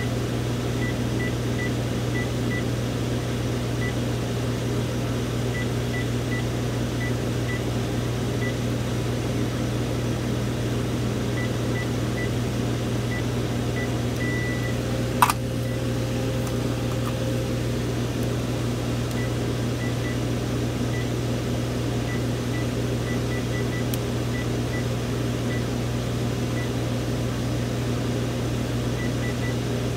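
Panasonic KX-TGF570 cordless handset's keypad beeps: short, faint high beeps at irregular intervals as menu buttons are pressed, over a steady low hum. A single sharp click comes about halfway through.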